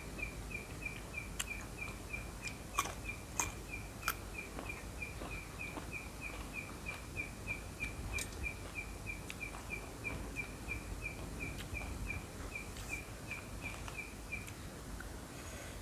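A high chirp repeated steadily at about four a second, stopping shortly before the end, over low background rumble, with scattered sharp clicks.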